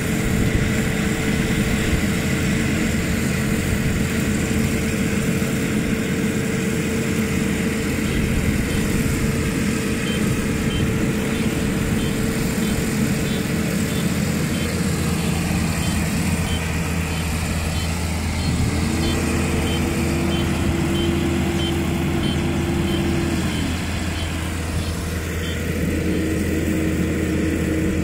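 Rice combine harvester's diesel engine running steadily under load while it cuts and threshes rice. A higher whine rises in about two-thirds of the way through, holds for a few seconds and drops away, then comes back near the end.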